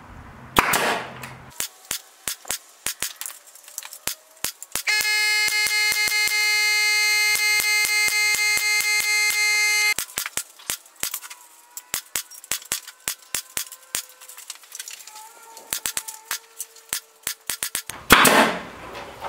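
Pneumatic staple gun firing staples one after another through chicken wire into a wood frame, dozens of sharp shots in quick succession. From about five seconds in, a loud steady high tone with overtones sounds for about five seconds over the shots, then stops suddenly.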